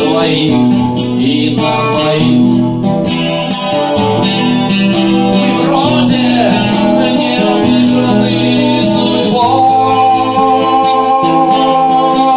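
Acoustic guitar strumming the chords of a song, changing about once a second, with a long held melody note in the second half.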